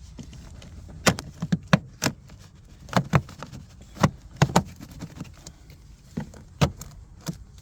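Plastic interior trim panel being pried off a 2021 Volkswagen Atlas, its retaining clips popping and the plastic knocking in a dozen or so sharp clicks in irregular clusters.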